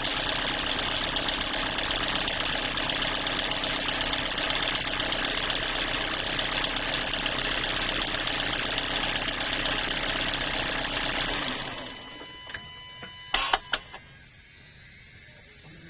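2016 Kia Forte engine idling steadily, then shut off about eleven seconds in. A couple of seconds later come two or three sharp clicks.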